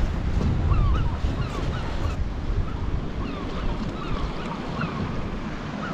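Sea washing on a rocky shore with wind on the microphone, the wind heaviest in the first couple of seconds, and many short bird calls scattered throughout.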